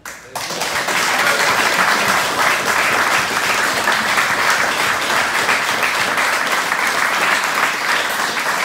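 Loud applause from a group of people, breaking out all at once and holding steady.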